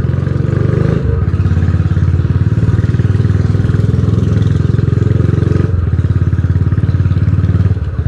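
Royal Enfield Bullet 350's single-cylinder engine running under way, a steady rapid low exhaust beat that shifts slightly about a second in and again near six seconds.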